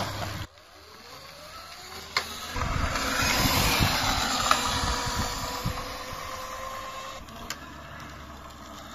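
Electric scooter's motor whining, rising in pitch as it speeds up, then holding a steady whine over rushing tyre and wind noise until it drops away about seven seconds in.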